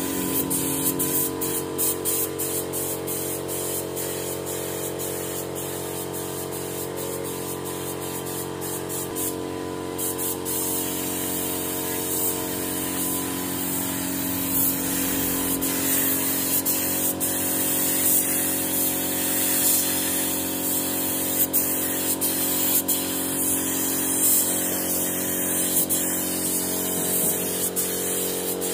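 Hose-fed spray gun hissing continuously as it sprays white paint, over a steady hum.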